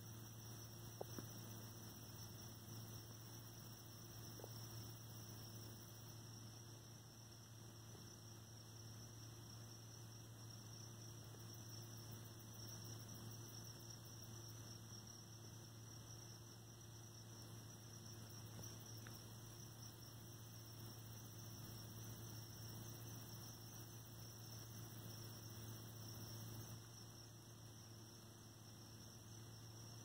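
Faint, steady chorus of crickets trilling without a break, with a low steady hum underneath.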